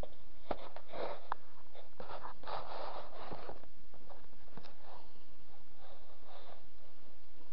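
Handling noise from a cardboard keyboard box being moved about on a cloth-covered surface: a few sharp knocks in the first second and a half, then a stretch of scraping and brushing noise between about two and three and a half seconds in.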